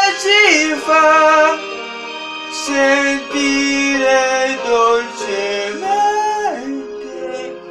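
Italian pop ballad: a voice singing long held, sliding notes without clear words over a backing track, getting quieter toward the end.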